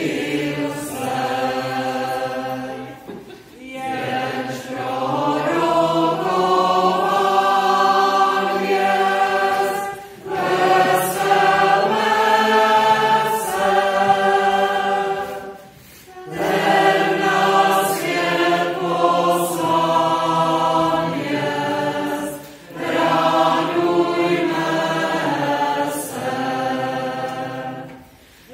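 Mixed choir of men and women singing together, in sung phrases of about six seconds, each followed by a brief pause for breath.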